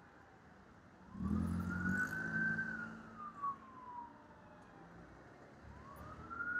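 Emergency vehicle siren wailing in slow sweeps. It rises about a second in, holds high, then slides down, and starts rising again near the end, with a low rumble underneath as it comes in.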